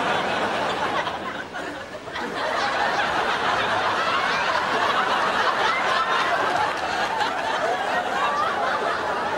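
Studio audience laughing, a continuous swell of many people's laughter with a brief dip about two seconds in.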